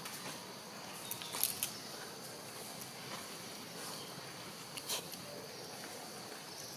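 Outdoor ambience: a faint steady high insect hiss with a few short, sharp crackles, a cluster about a second in and one more near five seconds.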